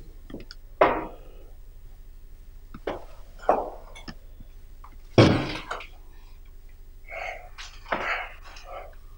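A person making a string of about eight short, sharp throat noises, each a second or so apart, with the loudest about five seconds in.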